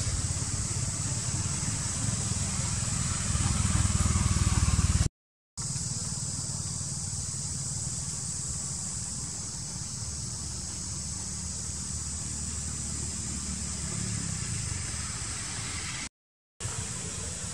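Steady outdoor background noise: a low rumble with a steady high-pitched hiss over it, cutting out to silence twice for about half a second.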